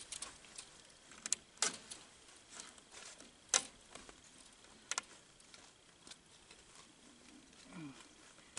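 High-tensile support wire of a maple sap mainline being shaken and worked through an adjuster pulley: scattered sharp metallic clicks and clinks, the loudest about three and a half seconds in.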